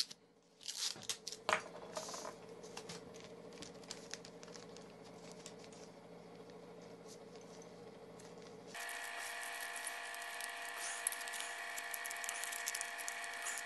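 Plastic bag crinkling and rustling as a small bag corner of flash powder is handled and fastened onto a fuse, with scattered light clicks. A steady background hum runs underneath and abruptly changes to a higher-pitched hum about nine seconds in.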